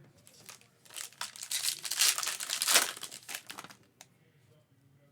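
Foil wrapper of a Panini Prizm trading-card pack crinkling and tearing as it is ripped open by hand. It runs for about three seconds, loudest in the middle.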